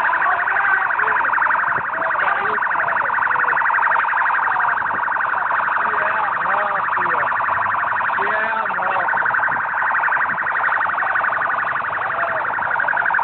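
Large crowd of football supporters shouting in the street under a loud, continuous, high warbling tone like a siren or alarm.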